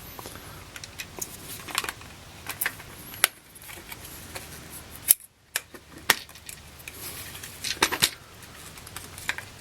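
Hard plastic and metal clicks and knocks from handling a Hubbell 30 A pin-and-sleeve plug and receptacle, scattered irregularly, with one sharp click about five seconds in.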